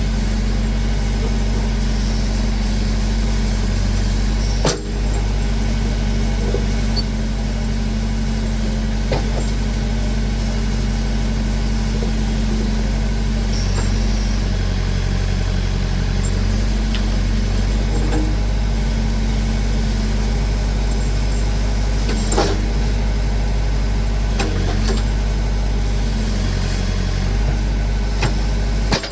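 Massey Ferguson backhoe's engine running steadily while working, its note shifting a few times with load, with a couple of sharp knocks, one about five seconds in and one a little past twenty seconds.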